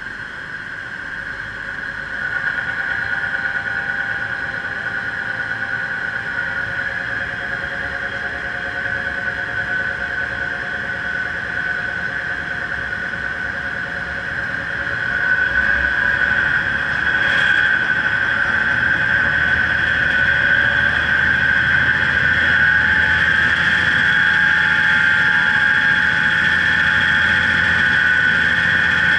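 Blower running with a steady high-pitched whine, driving flow through a large hose. It gets louder about two seconds in and again about fifteen seconds in, as the water below the outlet starts to churn.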